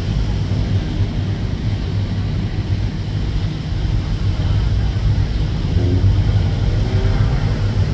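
Steady low rumble of street traffic and car engines, with a faint rising engine note about six seconds in.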